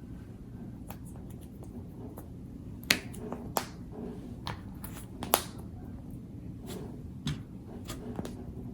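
A handful of sharp clicks or snaps over a steady low room hum. The loudest come about three and five and a half seconds in, with fainter ones scattered between.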